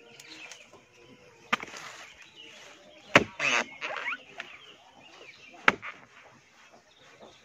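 Machete blade chopping into the crown of a felled coconut palm: three sharp blows, about a second and a half in, at three seconds and near six seconds, the middle one loudest, with a brief rustle just after it. The cuts open the top of the trunk to reach the palm heart.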